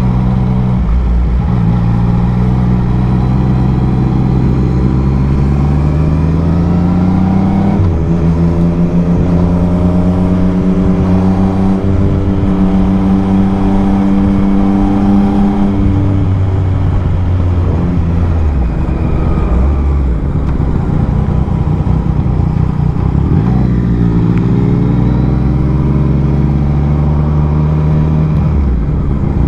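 Yamaha MT-09's three-cylinder engine heard from the rider's seat, pulling along the road: its pitch rises under throttle for several seconds, holds, drops around the middle, then climbs again and falls away near the end.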